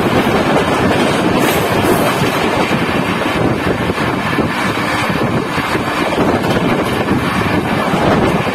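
Two passenger trains crossing at speed on adjacent tracks, heard from aboard one of them. The passing coaches rush by close alongside in a loud, steady wash of wheel, rail and air noise, with wind buffeting the microphone.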